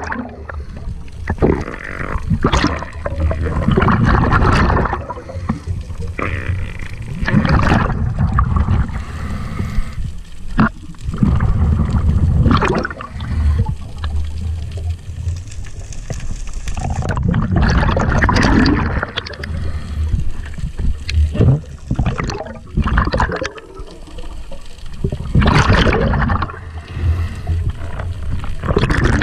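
Underwater bubbling and gurgling, heard through an underwater camera housing, rising in loud surges every few seconds.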